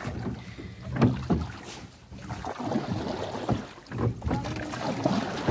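Wooden oar strokes of a rowboat on calm river water: the blades dip and pull with a splash and gurgle, louder about a second in and again about four seconds in.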